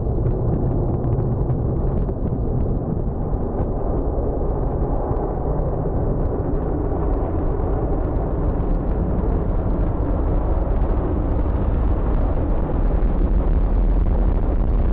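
Twin jet engines of an F-15 fighter running at high power for takeoff on the runway: a steady, deep jet noise that grows a little louder near the end.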